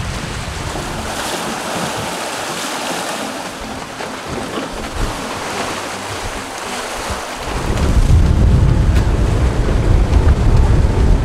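Choppy sea waves washing, with wind on the microphone. About two-thirds of the way in, heavy low wind buffeting sets in and the sound gets louder.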